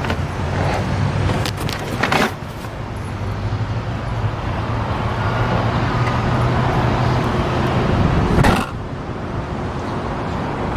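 Car running with a steady low hum and road-like noise. There is a short, loud noise about two seconds in and another near the end.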